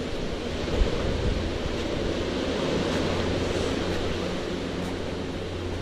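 Sea waves washing on the shore, a steady rushing noise, with a single thump about a second in.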